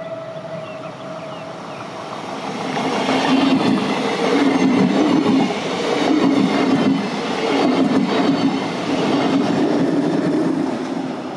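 A train passing on the railway: a horn's steady note ends about a second and a half in, then a rising rumble of wheels on track with a rhythmic clatter, swelling about every second and a half before fading near the end.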